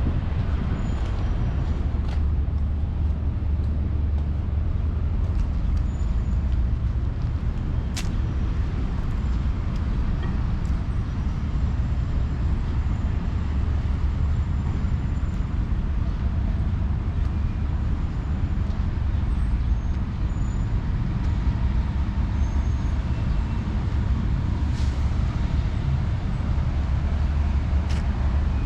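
Street traffic on a busy city road: a steady low rumble of passing cars and buses, with a few sharp clicks and knocks now and then.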